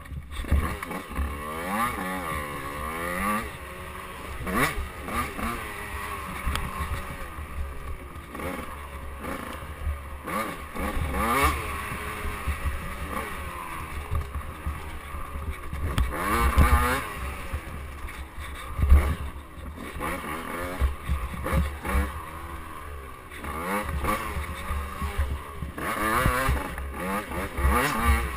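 KTM 85cc two-stroke dirt bike engine revving up and down over and over as the rider works the throttle along a twisting trail, with heavy wind rumble on the microphone and scattered knocks from the bike hitting bumps.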